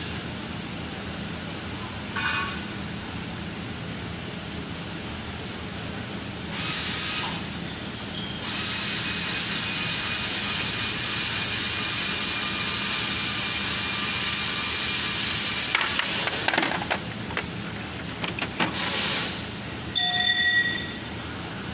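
Steady workshop hum, with a long hiss of several seconds under a car on a lift, then a few short whining bursts near the end.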